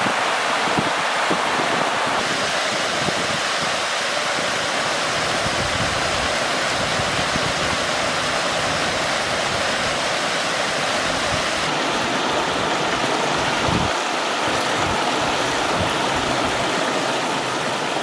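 Small waterfall rushing steadily down a sloping rock slab into a pool: a continuous white-water rush that shifts slightly in tone about two seconds in and again near the twelve-second mark.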